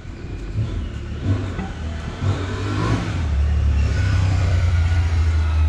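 A motor vehicle on the street nearby, its engine a low rumble that grows louder about halfway through and holds steady.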